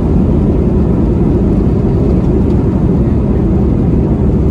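Steady low rumble of an Airbus A320 rolling along the runway after touchdown, heard from inside the cabin: engine and wheel noise with no breaks.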